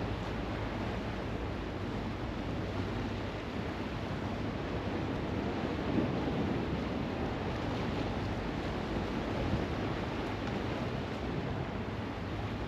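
Steady rushing of sea surf and wind, with wind buffeting the microphone.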